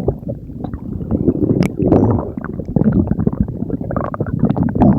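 A person's stomach growling: irregular low gurgles and rumbles, broken by many small crackling pops.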